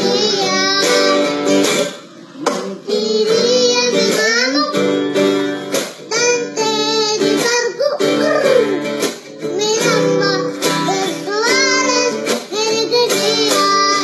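A young boy singing a song, with an acoustic guitar strummed along as accompaniment.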